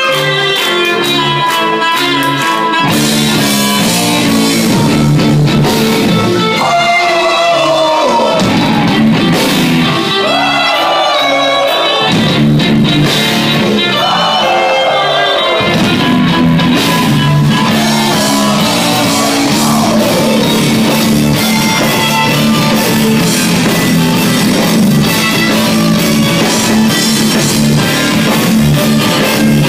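Melodic death metal band playing live, heard from inside the crowd: distorted guitars, bass and drums, with singing over them. The quieter opening notes give way to the full band about three seconds in.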